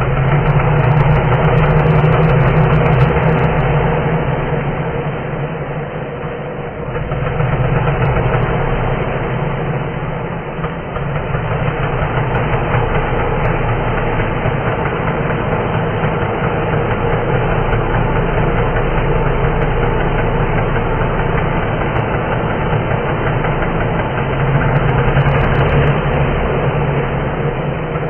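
Chainsaw engine sound effect, slowed down so it runs as a low, steady engine drone, with reverb added. It swells louder near the start, again about eight seconds in, and near the end.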